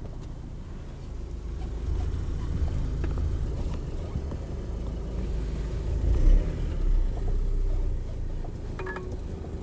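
Iveco Daily truck heard from inside its cab, engine running with a low, steady rumble and road noise as it drives slowly around a tight bend.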